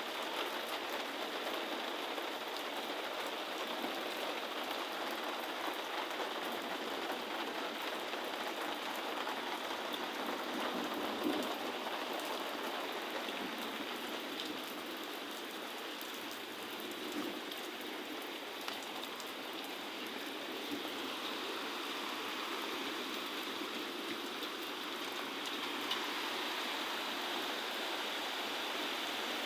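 Heavy rain falling steadily, a continuous even hiss of rain on the ground with no let-up.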